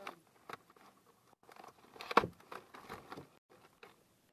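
Plastic packaging crinkling with scattered taps and clicks as hands handle a shrink-wrapped cardboard box; the sharpest click comes about two seconds in.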